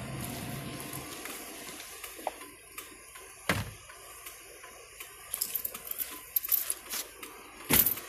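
Handling noise from a phone rubbing against clothing: rustling with scattered clicks and knocks, the sharpest near the middle and near the end. A low hum fades out in the first second.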